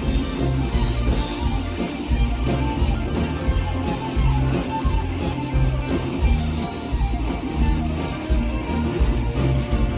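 Live band playing amplified country-rock music: guitars over a drum kit with a steady cymbal beat.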